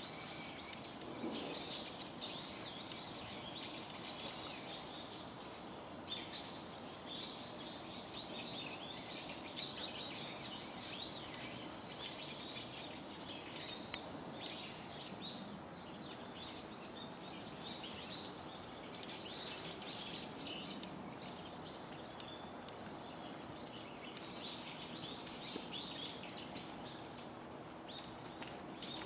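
Many small birds chirping and twittering continuously over a steady background hum.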